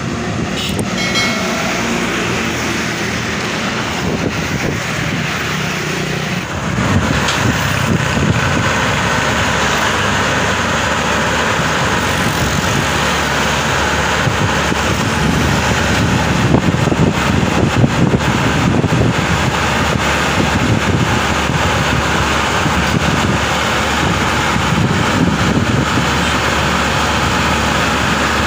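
Engine idling, then from about six seconds in the louder, steady running of a Bimo tracked combine harvester's diesel engine under load as the machine crawls down steel loading ramps off a flatbed truck, with a few knocks.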